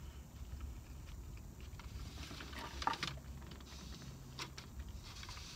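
Quiet chewing and mouth sounds from someone eating a crispy chicken taco, with a few small clicks and crackles and a faint low hum underneath.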